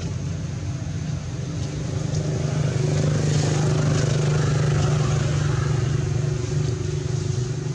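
Steady hum of a motor vehicle engine running, growing louder a couple of seconds in and easing off again near the end.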